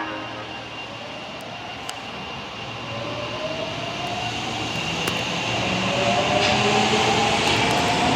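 Osaka Metro Tanimachi Line 22 series subway train pulling away, its motor whine rising steadily in pitch over wheel and running noise as it picks up speed and grows louder.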